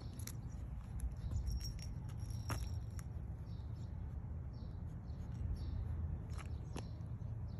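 Outdoor ambience: a low steady rumble with light clicks and ticks scattered through it, the sharpest about two and a half seconds in.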